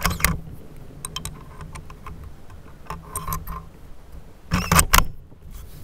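Bolt of a Ruger American bolt-action rifle being worked to chamber a 30-06 round: scattered light metallic clicks, then a louder cluster of clacks near the end as the action is closed.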